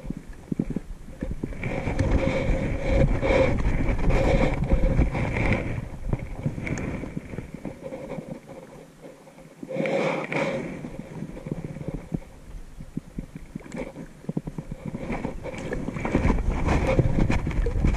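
Wind buffeting the microphone in gusts, a low rumbling rush that swells for a few seconds at a time and dies down briefly about halfway through.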